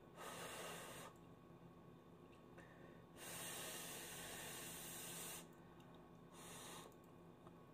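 Faint breathing through the nose close to the microphone while she eats with her mouth closed: a short breath at the start, a longer breath of about two seconds in the middle, then another short one near the end.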